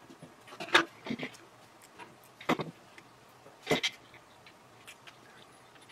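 Hand-handling sounds as thread sealing tape is worked onto a CO2 regulator's fitting and a solenoid valve is fitted to it: a few short, sharp rustles and clicks in the first four seconds, then only faint ticks.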